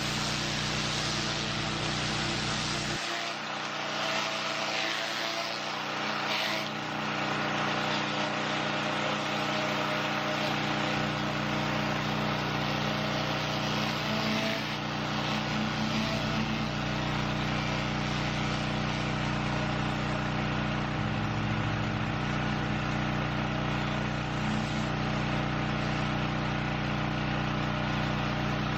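Small petrol engine of a pressure washer running steadily at a constant speed, with a steady hiss over it.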